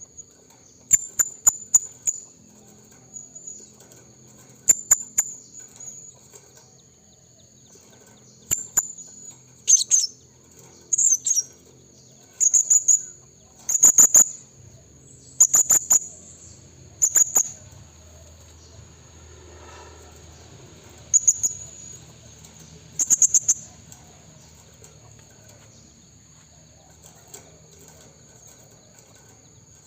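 Blue-crowned hanging parrot (serindit) giving shrill, very high-pitched call notes in short clusters, about a dozen bursts with a gap of several seconds near the end. It is a male's challenge call, used as a lure to draw in rival wild birds.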